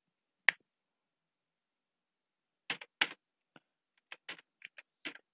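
Computer keyboard keystrokes: a single key press about half a second in, then after a pause of about two seconds a quick, uneven run of eight or so key presses.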